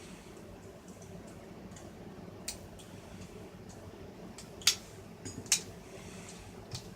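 A few sharp light clicks and taps of small parts being handled during radio reassembly, over a faint steady hum.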